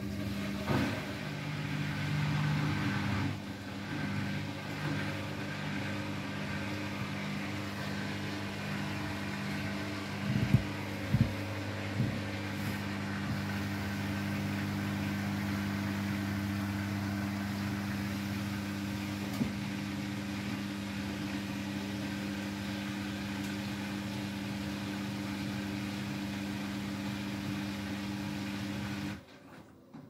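Beko WTK104121W front-loading washing machine on its final spin: the motor and drum give a steady hum, with a few sharp knocks about ten to twelve seconds in. The sound cuts off suddenly near the end.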